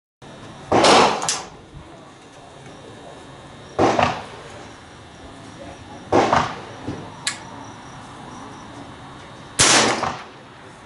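Four gunshots, a few seconds apart, each a sharp crack with a short fading echo, with a couple of faint clicks between them.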